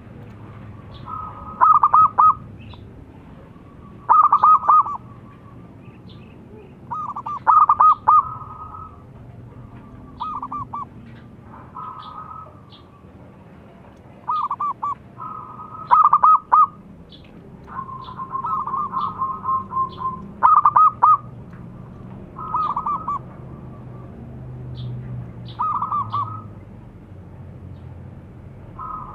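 Zebra dove (perkutut) song: short phrases of rapid staccato cooing notes, repeated every two to three seconds, some phrases loud and some fainter.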